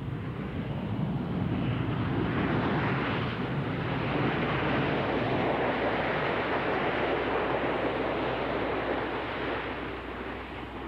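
Aircraft engine noise: a steady rushing sound that builds over the first few seconds and eases off near the end.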